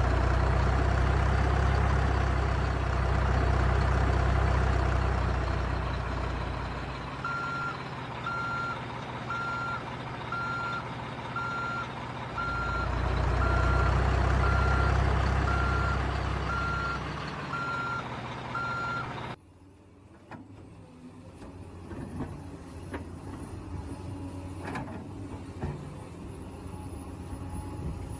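Dump truck engine running with a deep rumble that swells and eases twice, and a reversing beeper sounding about once a second from about a third of the way in. All of it cuts off abruptly about two-thirds through, leaving a much quieter, thinner mechanical whir.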